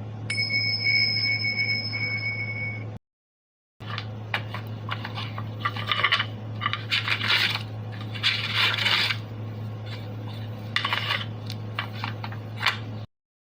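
Sound effects: a held ringing tone for about three seconds, then after a brief cut to silence, a long run of irregular clinks and scrapes, over a steady low hum.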